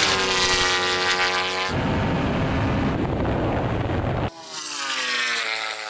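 Engines at full acceleration in a drag race between a twin-turbo Lamborghini Huracan V10 and a KTM MotoGP bike. An engine note falls for about two seconds, then comes a rush of wind and engine noise. About four seconds in, the sound cuts sharply to a high-revving engine note climbing steadily.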